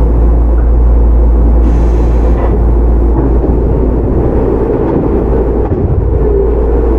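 Shizuoka Railway 1000 series resistance-controlled electric train running along the line, heard from inside the car: a steady heavy rumble of wheels on rail and running gear, with a brief rush of hiss about two seconds in.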